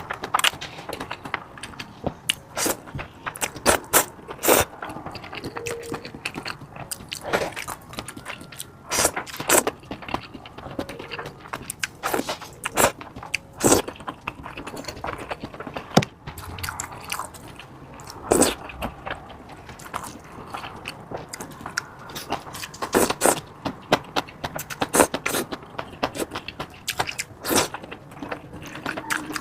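Close-miked eating: irregular biting, chewing and wet, sticky mouth clicks as someone eats a saucy, cheesy dish.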